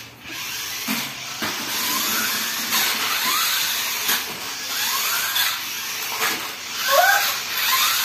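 Toy remote-control monster truck's electric motors whirring in short rising whines as it drives over a tile floor, with occasional knocks.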